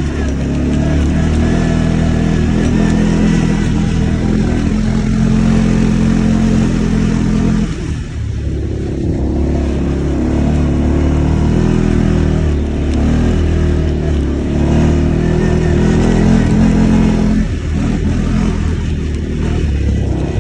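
A motor vehicle's engine running steadily, its note dropping and shifting about eight seconds in and again near the end.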